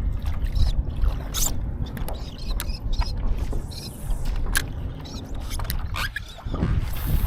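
Water slapping and splashing against a kayak hull, with irregular sharp splashes and knocks, over a steady low rumble of wind on the microphone.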